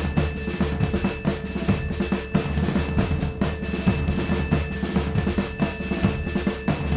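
Background music driven by busy, rapid drumming with snare and bass drum, over a few held tones.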